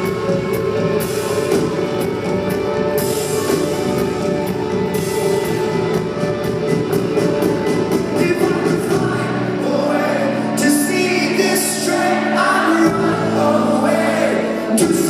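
Rock band playing live with singing: sustained guitar and keyboard tones under a vocal line, the wavering sung melody coming forward in the second half.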